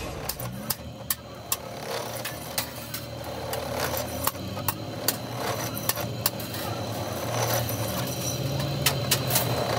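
Bench drill press running, its bit boring holes into a steel silencer pipe: a steady motor hum with frequent sharp clicks and ticks.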